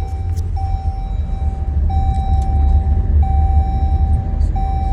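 Car driving, heard from inside the cabin: a steady low road-and-engine rumble, with an electronic chime beeping over it in long, even beeps a little over a second each.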